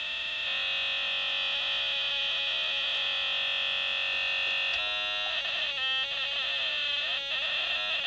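Harsh, buzzy electronic tone from a two-transistor astable multivibrator running as a needle pulse generator. The tone is rich in overtones and steady at first, then from about five seconds in it warbles and sweeps up and down in pitch, with brief breaks.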